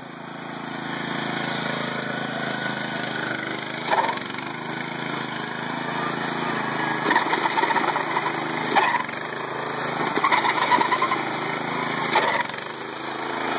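Riding lawn mower's small engine running as the mower is driven, with several short louder bursts along the way.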